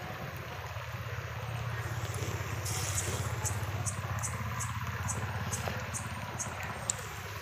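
Batter fritters of ripe mango deep-frying in hot mustard oil in a wok, sizzling steadily with scattered crackles.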